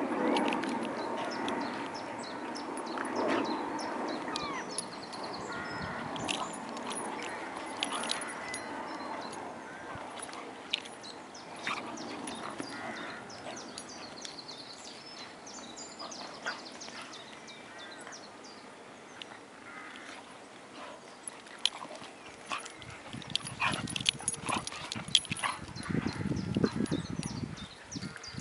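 Two dogs play-wrestling, with barks and whimpering calls over scattered sharp scuffling knocks, and bouts of low rumbling in the last few seconds.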